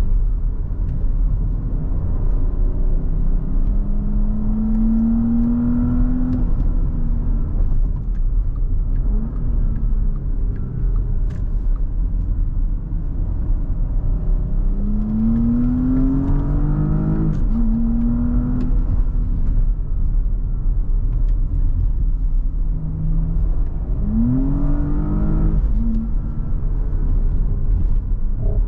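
Porsche Cayenne Coupe's 3.0-litre V6 engine pulling through the gears over a steady road rumble. Its pitch climbs several times under acceleration, most sharply in the middle and near the end, and drops back after each climb as the gearbox upshifts.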